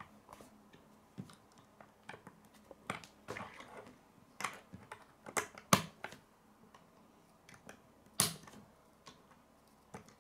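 K'nex plastic rods and connectors clicking and snapping together as they are handled and pressed into place: irregular sharp clicks, a few louder ones in the middle and one more about eight seconds in.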